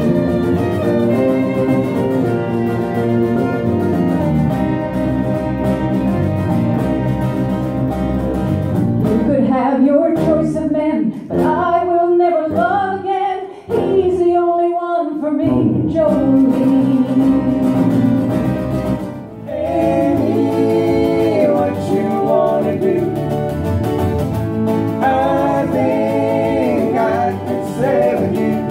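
Acoustic trio playing live: fiddle, acoustic guitar and bass guitar. For the first third the fiddle plays over the strummed guitar and bass. Then the instruments drop back and a woman sings almost alone for a few seconds, before the band comes back in under the singing.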